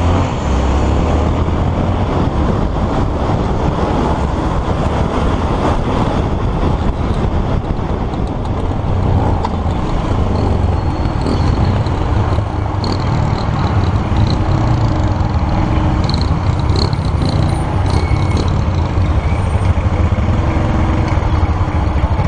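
Motorcycle engine running under way, heard from a camera mounted on the bike, with steady road and wind noise as it rides through traffic.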